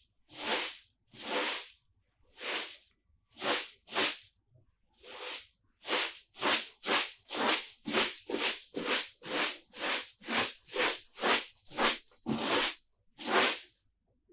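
Broom sweeping in separate swishing strokes: a few spaced-out strokes at first, then from about six seconds in an even run of about two strokes a second.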